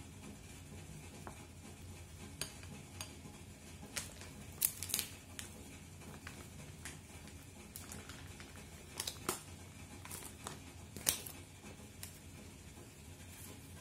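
Chopsticks stirring a thick flour-and-water dough in a glass bowl, clicking and scraping against the glass in irregular taps, a few louder knocks among them.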